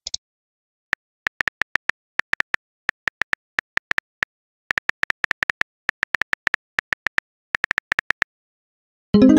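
Phone touchscreen keyboard clicks, one per typed letter, in quick irregular runs with short pauses. Near the end a brief pitched message-sent tone.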